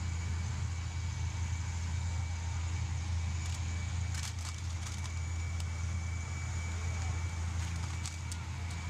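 A steady low hum, with a few sharp clicks and clatters of plastic cups being knocked over and scattering on stone paving, the last pair near the end.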